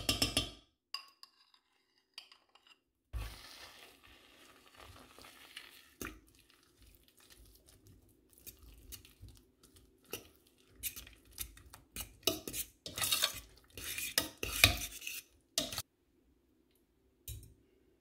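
A metal spoon stirring mashed potatoes and carrots into milk in a stainless steel pot, scraping and clinking against the pot's sides, busiest and loudest in the second half. It opens with a metal clank and a brief ringing tone.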